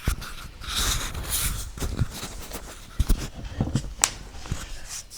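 Close handling noise: rustling with several short knocks and clicks, as the wireless mic and phone receiver are handled and fitted.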